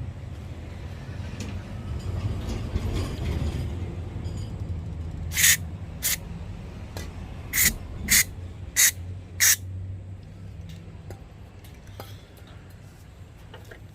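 Six short bursts of spraying hiss in quick succession over a steady low hum, on an engine being freed of a stuck intake valve.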